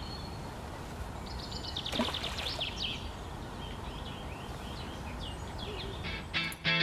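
Small birds singing, with a run of quick chirps and twittering phrases over a steady outdoor background hiss. There is a single short click about two seconds in.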